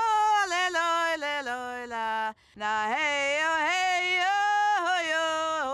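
A single voice singing unaccompanied in two phrases, with a short breath between them about two seconds in. The notes slide and waver, are held long, and fall to a lower held note at the end of each phrase.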